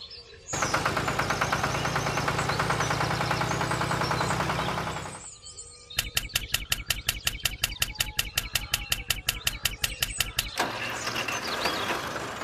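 Small tractor engine running: first a fast, even chugging, then after a short break a slower regular putt-putt of about eight beats a second. Birds chirp in the background, most clearly near the end.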